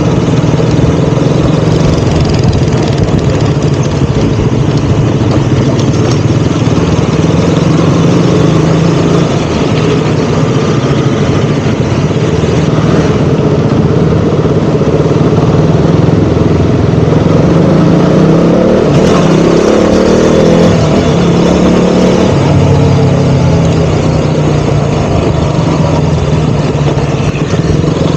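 KTM Duke 200's single-cylinder four-stroke engine running as the motorcycle is ridden, its note mostly steady, with the pitch climbing and falling again about two-thirds of the way through as the throttle is opened and closed.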